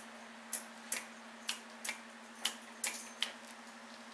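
Carburetor fuel-shutoff solenoid on a riding-mower engine clicking as its wire is touched on and off with the battery connected, a test that the solenoid works. Sharp clicks come roughly twice a second, some in quick pairs, and stop a little past three seconds in.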